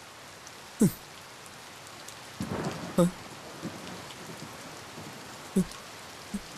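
Steady rain falling on pavement and foliage, an even hiss. A few brief, louder sounds break in, about one second and three seconds in, and again near the end.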